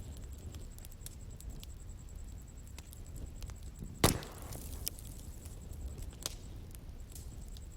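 Bonfire crackling: scattered small wood crackles over a low rumble of burning, with one loud sharp pop about four seconds in and a couple of smaller pops after it.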